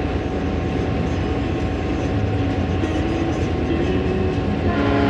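EMD diesel locomotive running along the line, heard from inside the cab as a steady engine drone with the rumble of wheels on rail. Near the end the locomotive's horn starts to sound.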